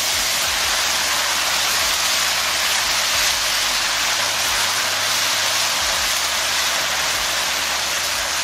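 Steady loud sizzle of shredded chicken frying in hot oil in a skillet, just after chicken bouillon and warm water were poured into the pan.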